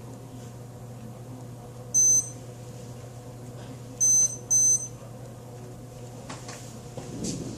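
Three short, high electronic beeps: one about two seconds in, then two in quick succession about two seconds later, over a steady low electrical hum.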